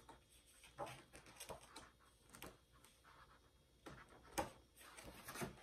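Faint handling noises: scattered light clicks, taps and rustles, the loudest about a second in and again about four and a half seconds in.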